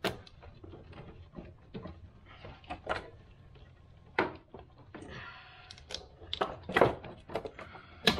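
Irregular clicks, knocks and rattles of hard plastic and metal parts being shifted by hand in a car's engine bay as the ABS modulator and its plastic bottom tray are lifted out of the way. There is a short scraping stretch about five seconds in and the loudest knocks come near the end.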